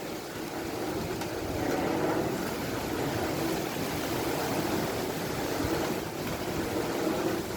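Windmill running loud in the wind: a steady rushing whoosh that swells and eases, like waves heard from a boat at sea.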